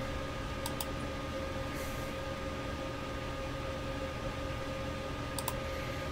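Computer mouse clicks, a quick pair about a second in and another pair near the end, over a steady electrical hum.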